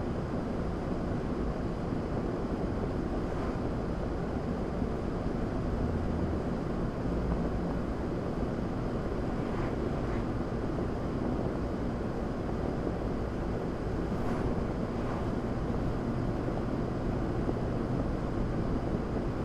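Steady road, tyre and engine noise heard inside a car cruising at about 45 mph. A couple of faint, brief swishes come from oncoming vehicles passing, one about halfway through and another about three-quarters through.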